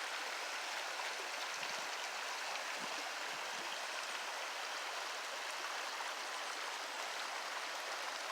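Fast-flowing river water and a waterfall rushing in a steady, even roar of water noise.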